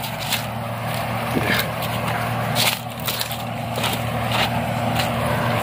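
Footsteps crunching irregularly along a dirt path strewn with dry maize leaves, over the steady low hum of an engine running in the background.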